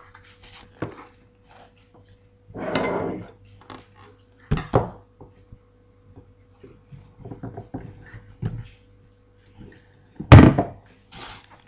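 Kitchen clatter: scattered knocks and clicks, with one loud thump about ten seconds in.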